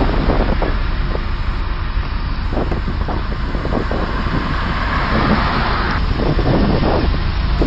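Steady loud rushing noise with strong wind buffeting the microphone, with scattered crackles throughout and a swell of rushing noise about halfway through.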